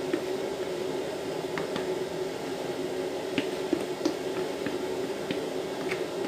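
Thick semolina basbousa batter being poured into a greased cake mould, with wet squishing and plopping and a few soft clicks, over a steady low hum.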